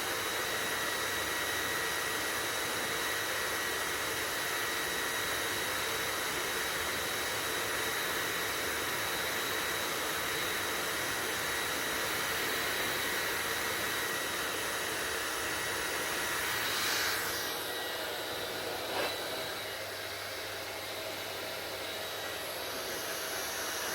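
Hair dryer running steadily, a rushing blow with a high whine. About two-thirds of the way through the tone shifts and the whine drops away, and a brief knock follows soon after.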